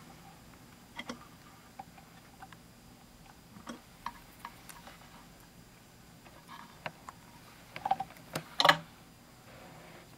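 Scattered small clicks and taps of tweezers and fingertips handling small metal parts and a clip in a Technics SL-1200 tone-arm base, with a cluster of louder clicks near the end.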